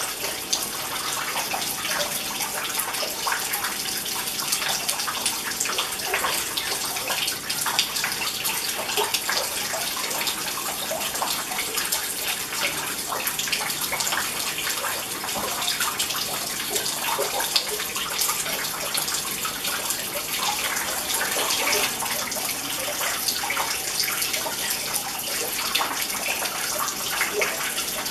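Water from a rock fountain's spout pouring as a thin stream into a small pool among rocks, a steady splashing.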